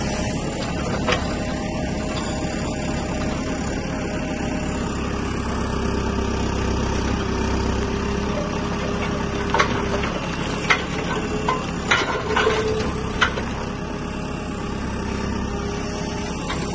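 Diesel engine of a JCB 3CX backhoe loader running steadily while the tilting rake attachment is worked, with a run of about six sharp knocks about halfway through.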